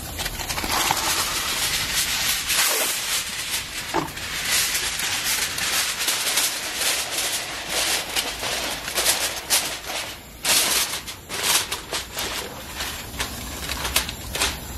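Aluminium foil crinkling and crackling in quick, irregular bursts as it is pressed and crimped over the edges of a metal sheet pan.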